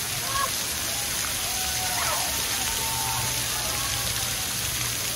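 Splash-pad water jets and spray falling in a steady hiss, with a few faint voices calling in the background.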